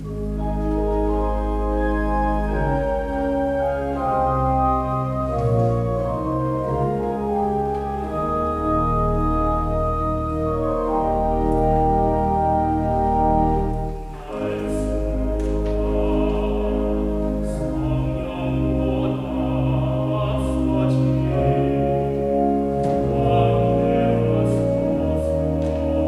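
A church organ plays a slow hymn introduction in sustained chords. About halfway through, a classical-style solo voice begins singing over it.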